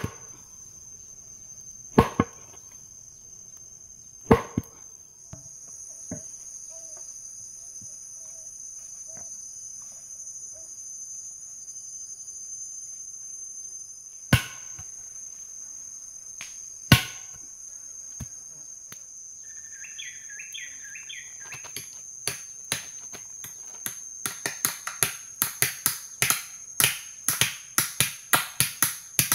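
Forest insects droning in a steady high tone, a second, higher insect joining a few seconds in. Over it come a few single sharp knocks, then, from about two-thirds of the way through, a quickening run of knocks, several a second.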